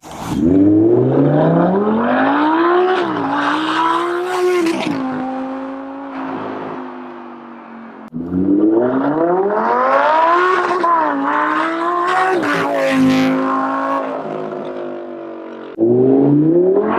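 Lamborghini Huracán's V10 exhaust note under hard acceleration: the pitch climbs, dips at quick upshifts, then settles to a steady tone and fades as the car pulls away. A second run starts abruptly about eight seconds in, and a third near the end.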